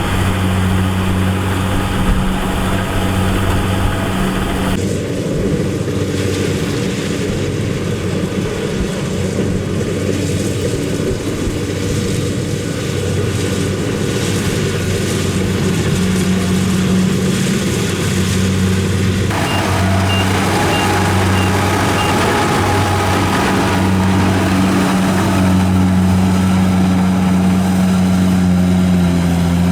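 Engine of a rice harvesting machine running steadily, a constant low hum. The sound changes abruptly about five seconds in and again near twenty seconds.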